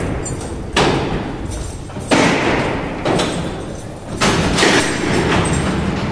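Several heavy slam-like hits, about one every one to two seconds, each trailing off into a long noisy wash: dramatic percussion from the soundtrack.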